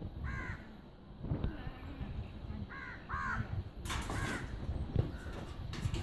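House crow cawing: four harsh caws, two of them close together near the middle of the stretch. A brief burst of rustling noise comes just before the last caw.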